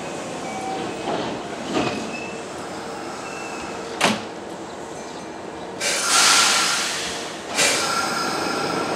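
Kintetsu electric train at a station platform: steady rumble with a sharp clack about four seconds in, then two loud hissing bursts, the first about six seconds in and the second a second and a half later.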